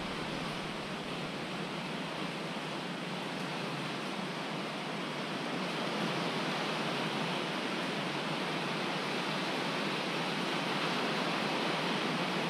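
Steady rushing hiss with no distinct events, growing slightly louder about halfway through.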